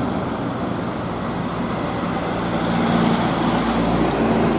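Roadside traffic noise: a vehicle going by with the rush of tyres and air, and a steady engine hum that comes in about two seconds in and grows a little louder.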